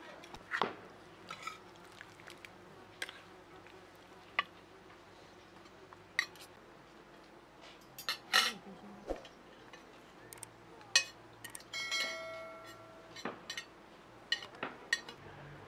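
Spoons clinking against plates and bowls as people eat, in scattered light taps, with one brief ringing note about twelve seconds in.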